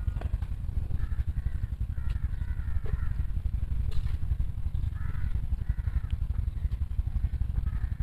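A steady, fluttering low rumble of outdoor background noise. Several faint, short calls come at intervals over it.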